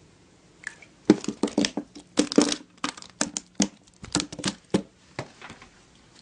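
A fast, irregular clatter of sharp knocks and crinkling rustles. It starts just under a second in and dies away around five seconds.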